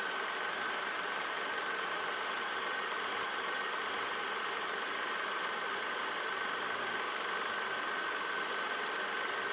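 Steady machine-like running noise with a constant high whine.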